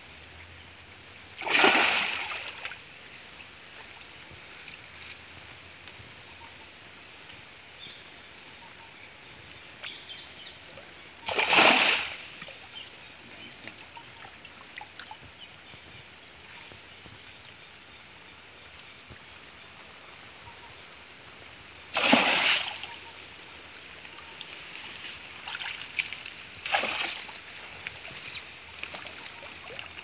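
Water splashing around a cast net with a large fish caught in it as the net is gathered in by hand in the shallows. There are four loud splashes spread out over a faint steady water hiss, the last two closer together.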